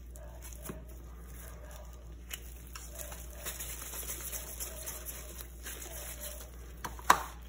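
Faint handling sounds of gloved hands working a sticky peanut dough with a small plastic scoop: soft rubbing with a few light clicks, and one sharper knock near the end.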